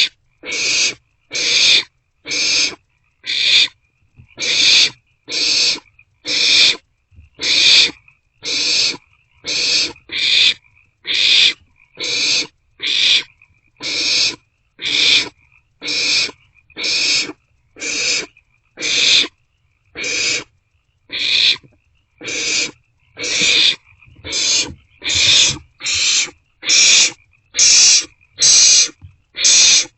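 Barn owlets giving rasping, hissing food-begging calls in a rapid, even series, about one and a half a second, each call a short burst of hiss.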